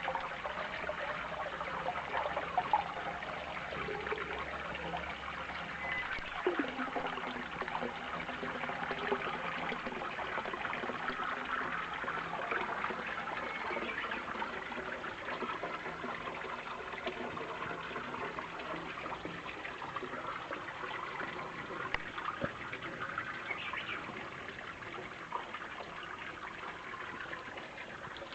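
Spring water trickling and splashing steadily.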